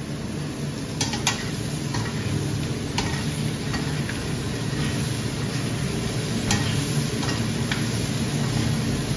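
Cut green vegetables sizzling in a hot nonstick wok as they are stir-fried with a spatula, with a few sharp clicks as the spatula knocks against the pan.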